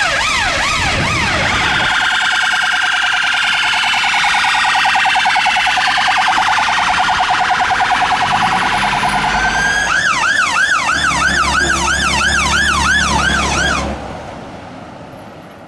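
Fire engine's electronic siren sounding rising and falling sweeps. About two seconds in it switches to a fast warble, and at about ten seconds it goes back to the sweeps. It drops off sharply about fourteen seconds in.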